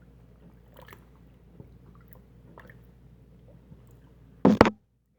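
Small drips and squelches of water in a blocked sink as a wet cloth is worked up and down in the drain to force suction, then one loud wet slosh about four and a half seconds in.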